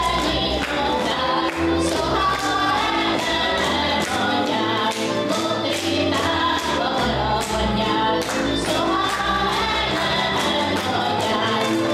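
Group of young women singing a Hungarian folk song together, over instrumental accompaniment with low sustained notes and a steady beat.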